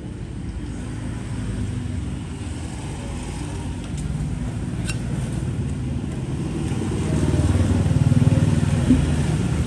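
Low engine rumble of a motor vehicle passing, swelling and getting louder about seven seconds in, with a few faint clicks.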